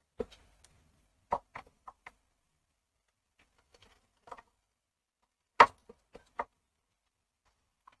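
Scattered light clicks and knocks as a Honda CD 70's front brake cable and its fittings are handled and fitted at the drum brake plate, coming in small clusters with the loudest knock about two-thirds of the way through.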